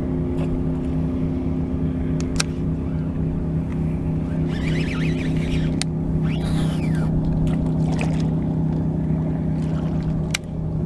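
Boat motor running steadily with an even hum, with a few sharp clicks over it.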